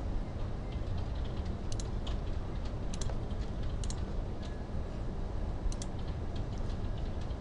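Sparse sharp clicks of a computer mouse, some in quick pairs, over a steady low background hum.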